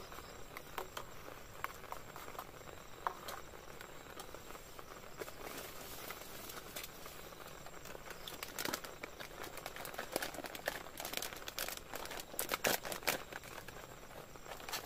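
Plastic food packet crinkling as it is handled and its contents are poured into an aluminium cooking pot, loudest in the second half. Light clicks of chopsticks on the pot come early on, over a soft patter of rain on the tent.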